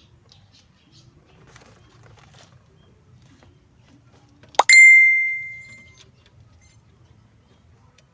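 A single sharp metallic strike about halfway through that rings out as a bell-like ding, one clear tone fading away over about a second and a half. Faint clicks and rustling come before it.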